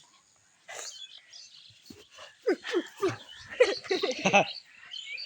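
A dog whining and yelping in a run of short high calls about halfway through.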